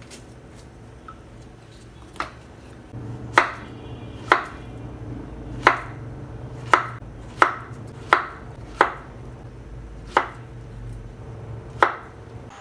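Kitchen knife slicing a peeled banana on a wooden cutting board: about ten sharp knocks of the blade reaching the board, irregularly spaced, beginning about two seconds in.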